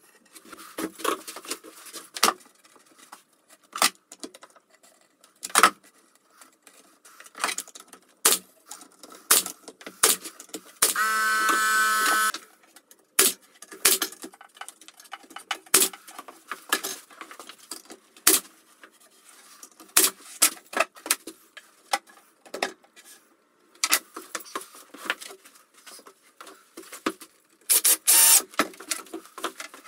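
Plywood cabinet panels being handled and knocked into place, with a run of sharp shots from a pneumatic nail gun fastening them. A steady whirring tone lasts about a second and a half near the middle, and a cordless drill runs briefly near the end.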